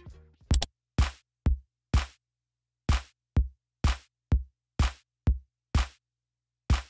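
Background electronic music: a sparse beat of single drum hits, about two a second, with short breaks after the fourth hit and again near the end.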